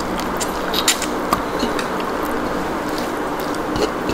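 Eating sounds: a few short wet clicks and smacks from chewing, over a steady background hiss and hum.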